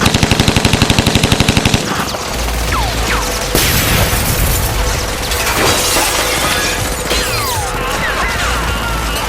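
Automatic gunfire: a rapid burst of about eleven shots a second lasting nearly two seconds, followed by a loud noisy stretch of shattering and crashing with a few short falling whines.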